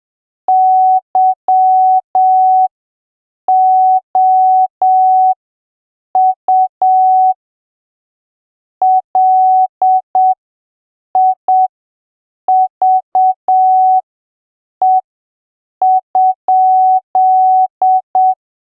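Morse code sent as a steady pure beep tone, keyed on and off in slow dots and dashes with silent gaps between letters and words, each element starting and stopping with a faint click. The code reads "YOU LIVE?", the end of the question "Where do you live?".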